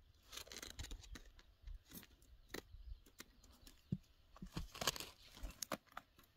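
Rustling and crinkling handling noise with many scattered sharp clicks, louder about half a second in and again around five seconds in.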